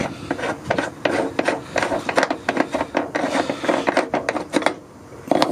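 Black plastic hose adapter being unscrewed by hand from a boat's waste pump-out deck fitting: a run of irregular rasping, clicking scrapes as the threads turn, easing off about four and a half seconds in.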